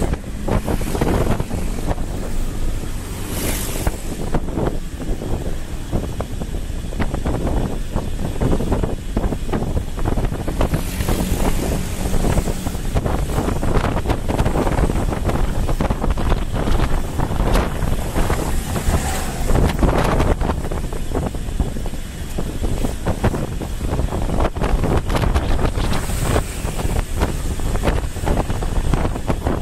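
Wind buffeting the microphone of a camera on a moving motorbike, a steady rush with a few stronger gusts, over road and traffic noise.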